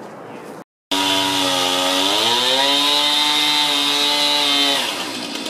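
Chainsaw running at high revs, starting abruptly just under a second in, its pitch sagging a little about two seconds in as it cuts, then easing off shortly before the end.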